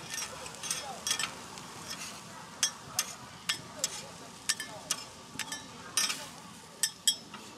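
Metal spatulas scraping and clacking against a flat-top griddle in irregular sharp strikes as corn kernels and shredded cheese are pushed and gathered, over a steady sizzle from the hot plate.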